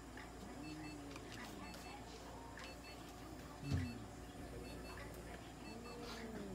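Electronic beeping from clinic medical equipment: a higher and a lower beep alternating, repeating about once a second. Under it are a few low, drawn-out moaning sounds, with a louder short downward one a little past halfway, and light handling clicks.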